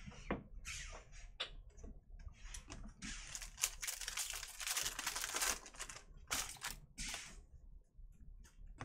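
Trading card pack's foil wrapper being torn open and crinkled for a couple of seconds, about midway, amid light clicks and taps of cards against each other and the table, and a couple of sharp rustles as the cards are pulled out.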